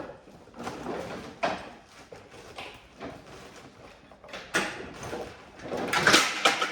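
Irregular knocks, scrapes and clatter of hard parts being handled, with a louder rushing noise near the end.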